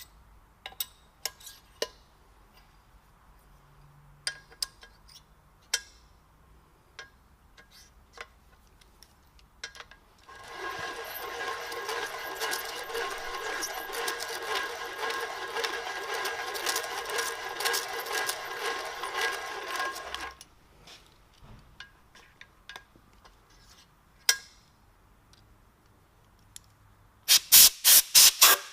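Hand-turned valve seat cutter scraping as it rough-cuts a valve seat in a Cummins 12-valve cast-iron cylinder head, a steady rasp lasting about ten seconds in the middle. Scattered light clicks of tool handling come before and after, and a quick run of loud sharp clicks comes near the end.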